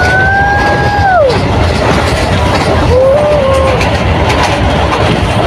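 Passenger train running across a steel truss bridge: a loud, steady rumble of the wheels on the rails. A long held tone drops away about a second in, and a shorter one sounds near the middle.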